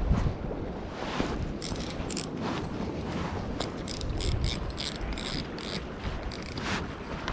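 Spinning reel being wound, its gears and rotor giving short bursts of clicking and whirring, with wind noise underneath.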